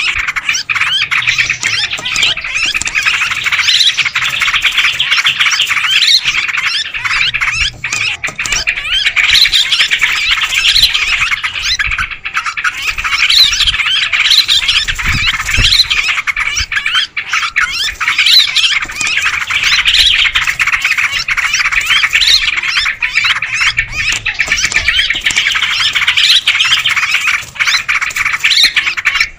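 Yellow-vented bulbuls in a busy flock chorus of dense, overlapping chattering calls, with sharper pitched notes recurring every second or so. It is a noisy lure call meant to draw wild bulbuls in.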